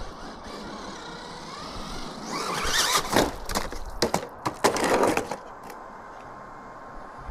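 Electric RC car driving off-road: the motor whines up just before two seconds in, then loud gritty bursts of tyres churning ground for about three seconds before it settles back.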